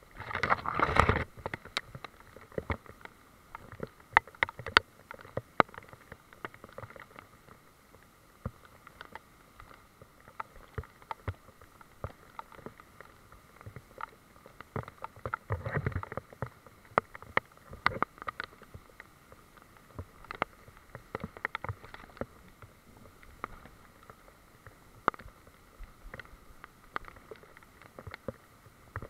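Irregular clicks, knocks and rubbing from a camera being jostled as it is carried through wet undergrowth, with louder rumbling handling bursts about a second in and again around the middle.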